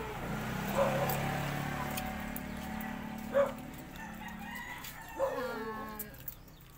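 A rooster crowing several times, over a steady low hum that fades out a little past the middle.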